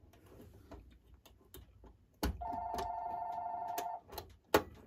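A telephone ringing: one steady ring lasting about a second and a half, starting a little after halfway through. Light clicks and knocks come before it, and a single sharp knock, the loudest sound here, comes near the end.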